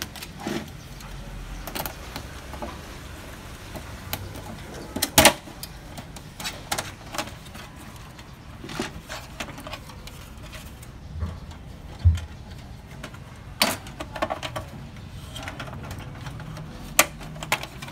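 Scattered plastic clicks and knocks as the black plastic side cover of an HP Color LaserJet Pro M177fw printer is worked loose and pulled off by hand. The loudest click comes about five seconds in, with a dull thump around twelve seconds and more sharp clicks near the end.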